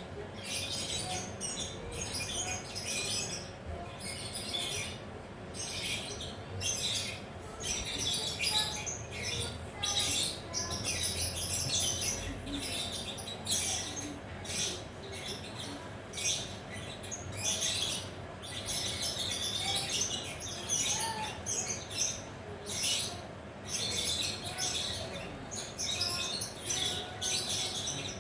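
Lovebird chattering: rapid runs of high, shrill chirps coming in bursts about every second.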